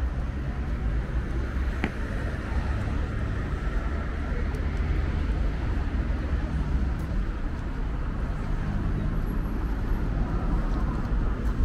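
City street traffic: a steady rumble of cars on the road alongside, with a single sharp click about two seconds in.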